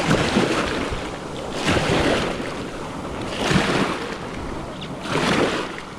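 Small ocean waves washing and splashing in surges about every one and a half to two seconds, with wind on the microphone.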